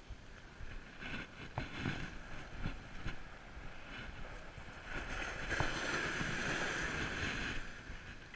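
Stand-up paddle strokes splashing in seawater, a few short splashes, then a longer, louder rush of water from about five seconds in until shortly before the end.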